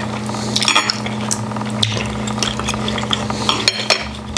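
Knives and forks clinking and scraping against dinner plates while eating, with several sharp clinks.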